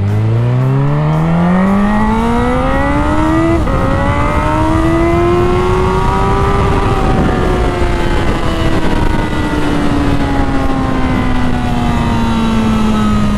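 Honda CB1000R's inline-four engine pulling away under throttle: its pitch climbs, drops sharply at an upshift about three and a half seconds in, climbs again to about seven seconds, then slowly falls as the revs come down. A steady rush of wind noise runs underneath.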